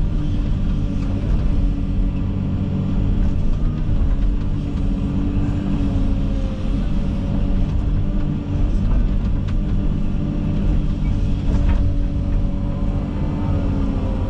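Komatsu 360 excavator's diesel engine running steadily, heard from inside the operator's cab, with an even low rumble and a steady hum.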